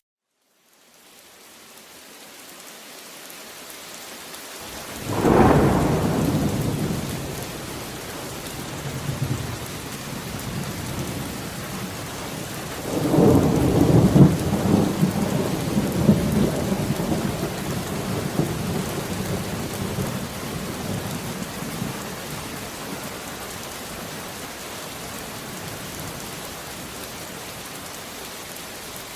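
Steady rain falling in a thunderstorm, fading in from silence at the start. A thunderclap comes about five seconds in and rumbles away. A longer rolling peal of thunder starts about thirteen seconds in and dies out over several seconds.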